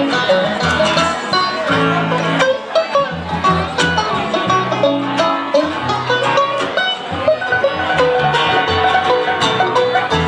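Live bluegrass band playing: acoustic guitar, upright bass and mandolin, with quick plucked string notes over a steady bass line.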